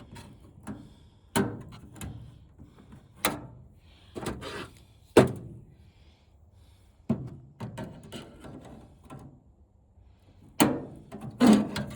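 Irregular knocks and clunks of flat-screen TV parts being handled and worked loose, the loudest about five seconds in and a quick cluster near the end.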